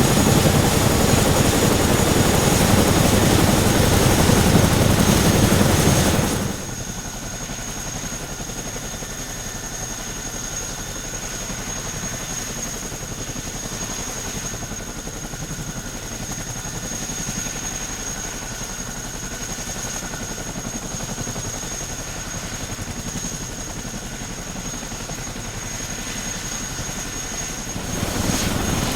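CH-47 Chinook tandem-rotor helicopter running: a rapid rotor beat under a steady high turbine whine from its twin turboshaft engines. The level drops sharply about six seconds in, leaving the whine and a softer rotor sound, and rises again near the end.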